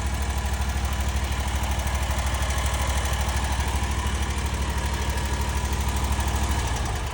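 Kawasaki FX850 V-twin mower engine idling steadily with a slight tick: the valves are loose and need adjusting, so the rocker arms clatter a little. Near the end the engine's note drops and the sound eases off.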